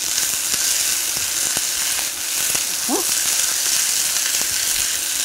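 Sliced onion sizzling as it sautés in hot oil in a stainless steel pan, stirred with a wooden spoon, with small crackles and scrapes through the steady hiss.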